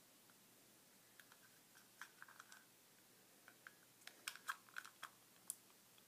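Faint clicks and taps of fingers working at a small, cheap clear plastic battery box for copper-wire string lights, trying to pry open its sliding cover. The clicks come in small clusters, sharpest and most frequent about four to five and a half seconds in.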